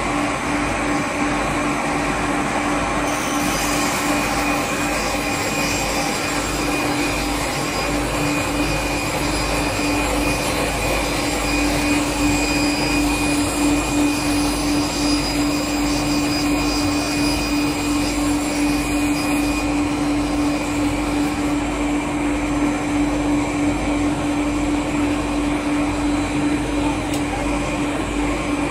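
A 22 kW single-shaft multi-rip circular saw (Perun MSP-1300) runs steadily with a strong hum while ripping three stacked 3 mm HDF sheets into strips. A higher hiss of cutting joins in about four seconds in and eases off around twenty seconds.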